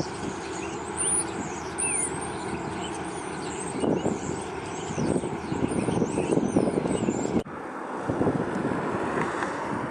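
Outdoor ambience: small birds chirping high over a steady rushing background noise. About seven and a half seconds in the sound cuts abruptly, the birds stop, and only the rushing background remains.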